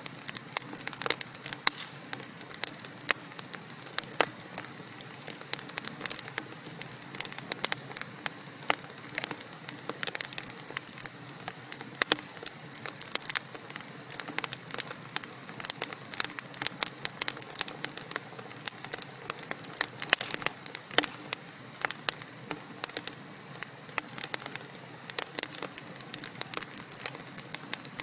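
Wood fire of burning logs in a fireplace crackling: dense, irregular sharp pops and snaps over a soft steady hiss of flame.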